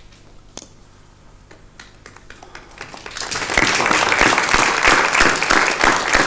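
Applause from a small group of seated people: a few scattered claps at first, then dense, steady clapping from about halfway through.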